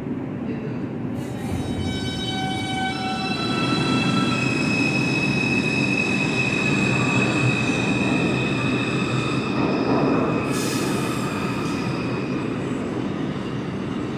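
New York City Subway train running through the station with a heavy rumble, its steel wheels squealing in several high, steady tones that build over the first few seconds and fade near the end. A brief hiss comes about ten seconds in.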